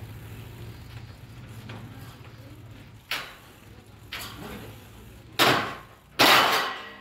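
Long steel channel sections being unloaded and set down on the ground: four metal clangs and clatters, the last two the loudest, each ringing on for about half a second.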